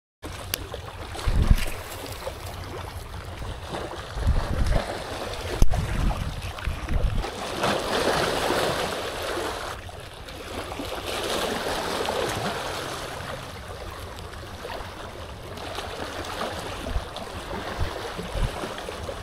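Small waves washing and splashing against shoreline rocks, the wash swelling and fading every few seconds. A few wind gusts thump on the microphone in the first half.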